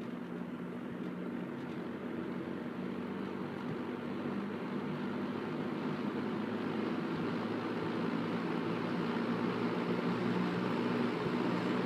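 1970s Lakewood S-223 box fan with a McMillan motor running on medium speed: a steady motor hum under the whoosh of the blades, gradually getting louder as the fan spins up to speed after being switched up from low.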